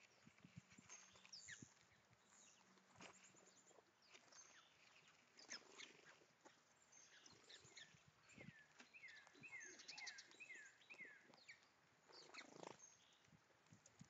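Faint sounds of an eastern gray squirrel feeding on a seed pile: scattered small clicks and rustles. About two-thirds of the way through, a distant songbird sings a quick run of five or six downward-slurred whistled notes.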